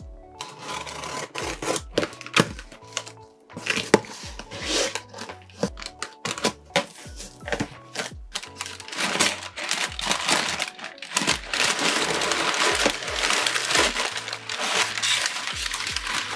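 A cardboard shipping box being cut open and unpacked, with sharp clicks and crackles, then denser rustling and crinkling of packing material from about nine seconds in, over background music.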